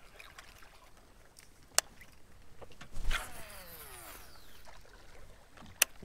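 A cast with a baitcasting reel: a swish about halfway in, then the free-spinning spool whining down in pitch as it slows. Two sharp clicks, one before the cast and one near the end.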